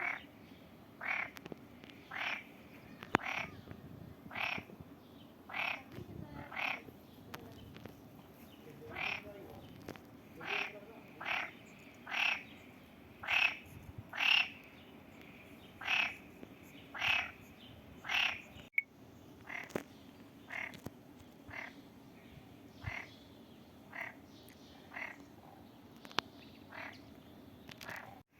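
Frogs croaking in a pond: a regular series of short calls, about one a second, with a pause of about two seconds early on, over a steady low background hum.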